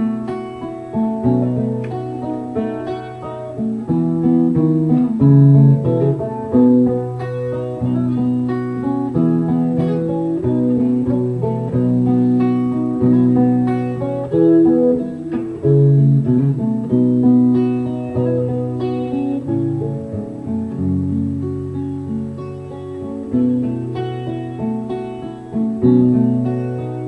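Solo acoustic guitar playing an instrumental interlude, picked and strummed chords with no singing.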